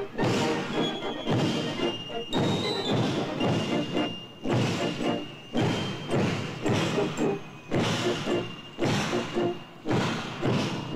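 A military marching band plays a march, brass and woodwinds over heavy drum beats that fall roughly once a second.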